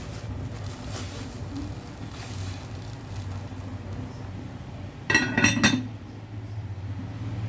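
A glass lid is set onto a glass cooking pot, clinking and ringing in a quick rattle for under a second about five seconds in. Underneath is the steady bubbling of boiling water and a low hum.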